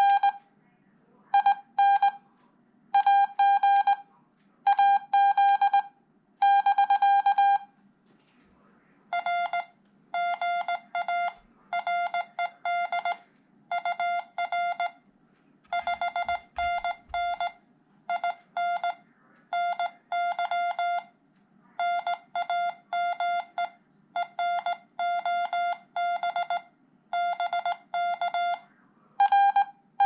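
Morse code sent as keyed beeps from a CW Hotline practice oscillator. A higher tone, keyed from an iambic paddle, runs for the first several seconds and starts again near the end; in between, a slightly lower, quieter tone carries the other station's reply over the internet link.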